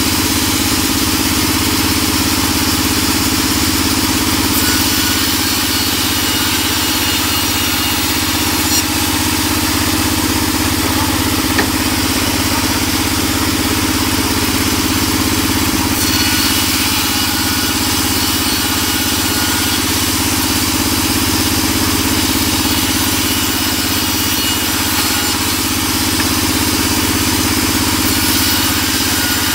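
Large vertical band saw running steadily with a constant mechanical hum, its blade ripping lengthwise through wooden boards as they are fed across the table.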